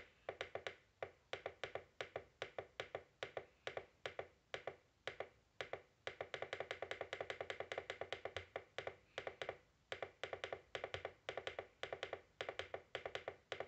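Rapid, repeated clicking of a Capello CR-22 clock radio's plastic top-panel button being pressed over and over to step the minutes forward while setting the time. The clicks come in irregular runs, densest and fastest in the middle stretch.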